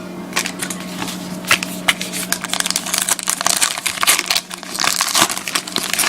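Crinkling and crackling of a trading-card pack wrapper being torn open and handled, with cards rustling, in irregular quick bursts. A faint steady hum runs underneath.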